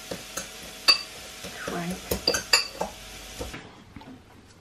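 Metal utensils clinking and scraping against pots, pans and dishes while cooking, a handful of sharp clinks, some ringing briefly.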